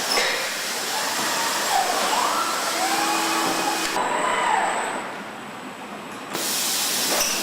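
Car-factory production-line noise: a steady hiss of air and machinery, with a few brief rising-and-falling whines midway. The character of the noise changes abruptly twice.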